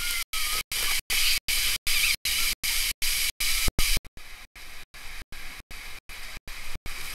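Water jets of a splash-pad fountain spraying and pattering down in a steady hiss. About four seconds in, this gives way to a quieter rush of water running down a water slide. The audio is chopped by brief dropouts about three times a second.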